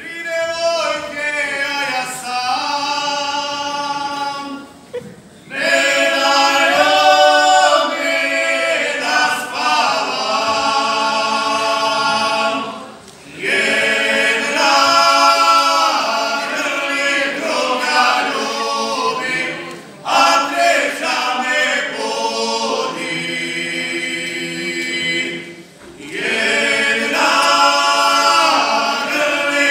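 Male vocal group singing a traditional Serbian folk song a cappella in several voices, in long phrases with short pauses between them.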